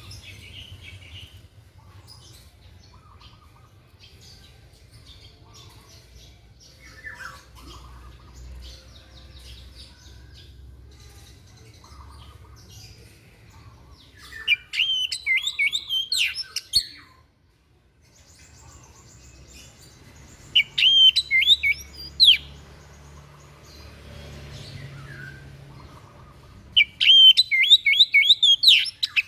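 A white-breasted songbird ('dada putih') singing. Scattered faint chirps at first, then three loud bursts of rapid, warbling up-and-down notes: about halfway through, two-thirds in, and near the end. The sound cuts out briefly just before the second burst.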